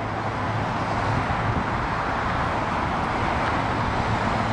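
Steady road traffic noise: an even hiss with a low hum underneath, getting a little louder about a second in.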